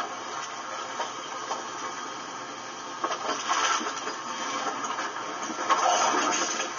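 Steady engine noise, heard from inside a vehicle's cab.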